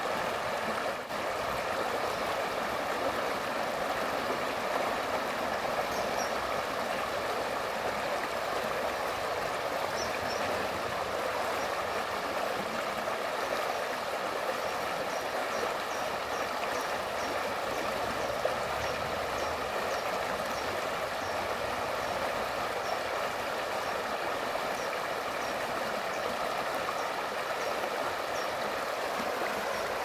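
Shallow river water flowing over stones and gravel riffles: a steady, even babble of a small stream.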